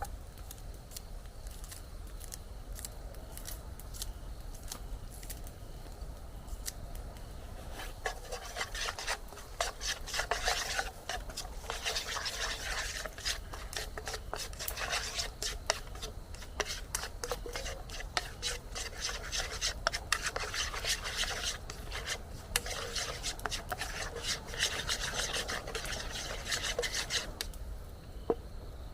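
Rapid rasping, scraping strokes, dense and uneven, building up about eight seconds in and stopping a second or two before the end.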